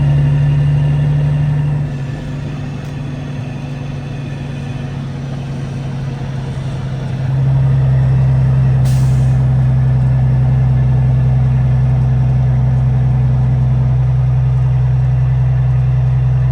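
Semi truck's diesel engine running: it eases off about two seconds in, then pulls steady and louder again from about seven seconds in. A brief hiss of air comes near the middle.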